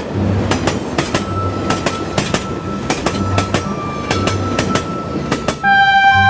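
Train running on rails: rhythmic clickety-clack of wheels over rail joints, then a horn or whistle sounding steadily near the end.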